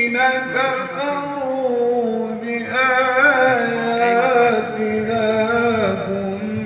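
A man reciting the Quran in melodic tajweed style: one long held phrase with a wavering ornament about three seconds in, falling in pitch toward the end.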